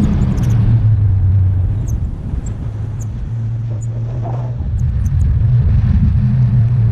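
Wind rushing over the camera microphone in flight under a tandem paraglider: a loud, steady low rumble that eases off a little around the middle.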